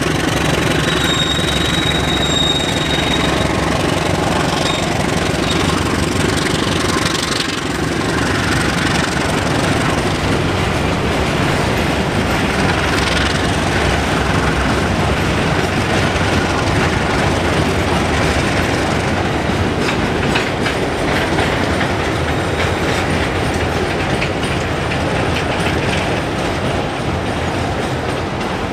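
A tank-wagon freight train rolling out past the platform, its wheels clacking over the rail joints, with a diesel locomotive's low engine hum in the first few seconds.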